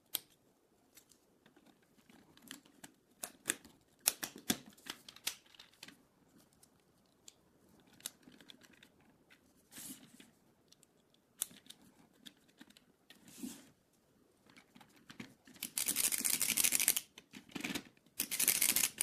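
Small 3D-printed plastic jack parts clicking, snapping and rattling as they are fitted together by hand. Near the end come two longer stretches of dense, rapid plastic ratcheting as the jack is worked and its lift arm rises.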